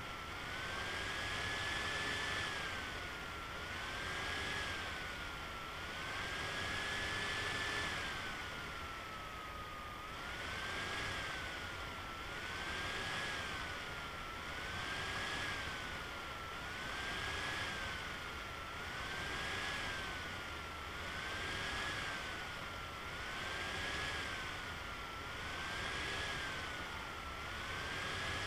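Machining sound from the Swansoft CNC turning simulator as it runs the program: a whining tone rises and falls over a hiss, repeating about every two to three seconds.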